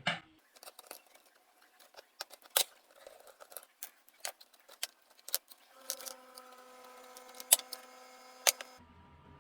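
Scattered light clicks and taps of small parts being handled while a cordless drill's battery pack is worked on. A faint steady hum comes in about six seconds in and stops shortly before the end.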